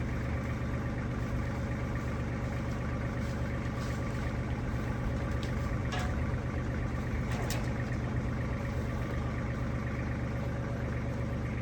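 A farm vehicle's engine running steadily, with a few sharp clicks or knocks in the middle.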